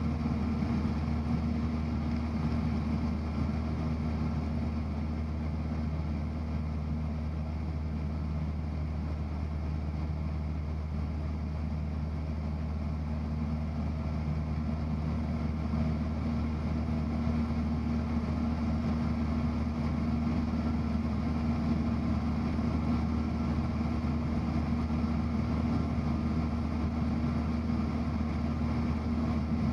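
Single-engine Cessna 172's piston engine and propeller droning steadily in cruise flight through a steep right turn, heard from inside the cabin.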